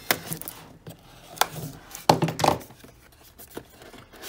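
Cardboard box being handled and opened by hand: scraping and rustling of the packaging with several sharp knocks, the loudest right at the end.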